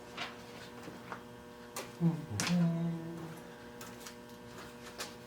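A few light clicks and taps of handling over a steady low electrical hum, with a short hummed voice sound about two seconds in.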